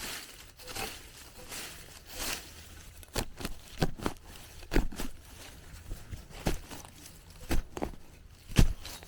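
A digging tool chopping into the ground, with soft scraping at first, then a series of sharp thuds about one a second.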